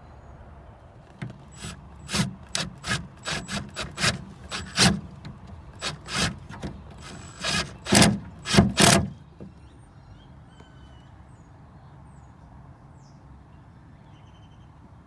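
Irregular scraping and knocking as the antenna mount bracket and a wood spacer are worked into place against the pickup's bed rail, about fifteen sharp strokes over some eight seconds, then it stops.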